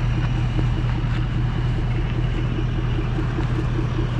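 Pressure washer's engine-driven pump running steadily with a faint regular pulse about five times a second, over the hiss of the water jet spraying on the concrete.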